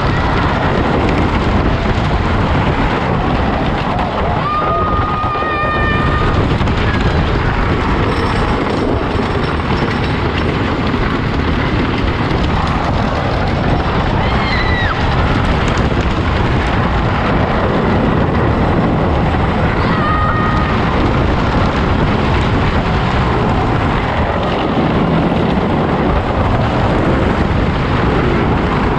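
Wooden roller coaster ride heard from a camera on the train: a continuous loud rush of wind over the microphone and the rumble of the train on the wooden track. A few brief high-pitched cries from riders break through.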